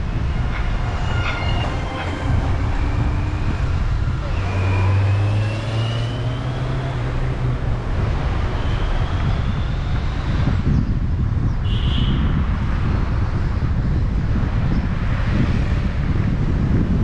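Steady low rumble of outdoor traffic, with a vehicle passing; its engine note rises from about four to eight seconds in.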